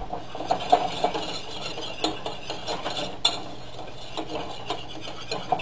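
Wire whisk stirring and scraping a roux against the bottom and sides of a stainless steel saucepan: an irregular run of small scrapes and clicks.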